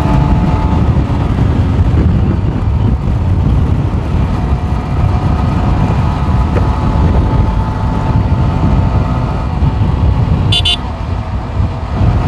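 Wind buffeting the microphone over the steady running note of a Yamaha R15 V4's 155 cc single-cylinder engine at around 60 to 75 km/h. A short horn toot sounds about ten and a half seconds in.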